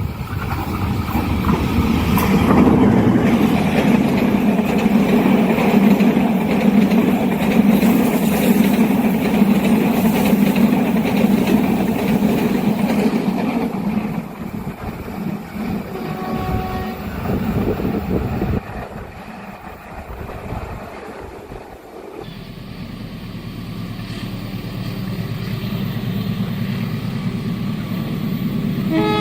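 Train passing with a heavy rumble that fades after about fourteen seconds, with a brief tone about sixteen seconds in. After an abrupt change near twenty-two seconds, a steady engine sound builds, and a train horn begins at the very end.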